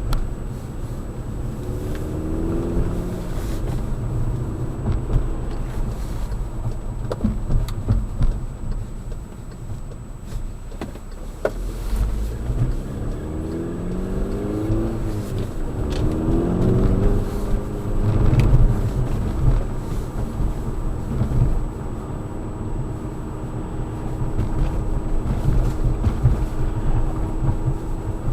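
Volkswagen GTI driving, heard from inside the cabin: the engine note rises under acceleration and drops at each gear change several times, over a steady low road rumble, with a few short clicks.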